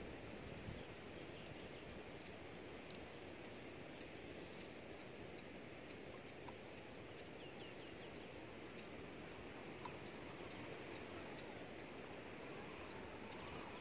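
Faint outdoor background: a steady low rumble of wind on the microphone, a thin high tick repeating a little more than once a second, and a few short bird chirps about seven seconds in.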